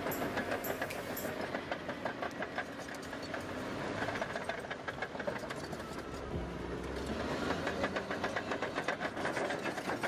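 Caterpillar D7R crawler bulldozer running, its steel tracks clanking in a quick, even rattle over the steady drone of the diesel engine.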